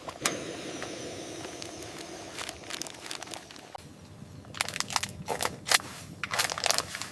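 A soft steady hiss, then from about four and a half seconds in a quick run of sharp crackling and crunching clicks, like material being crinkled or crushed in handling.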